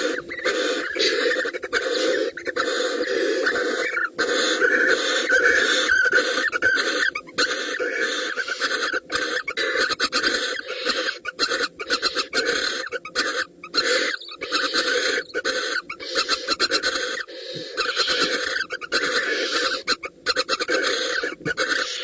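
Barn owls giving their long, wheezy hissing 'snore' call, broken by many brief gaps. This is the call barn owls make when begging food and during courtship.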